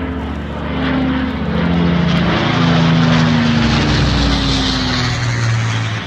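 De Havilland Mosquito's twin Rolls-Royce Merlin V12 piston engines as the aircraft passes, growing louder to a peak about three seconds in while the engine note falls in pitch.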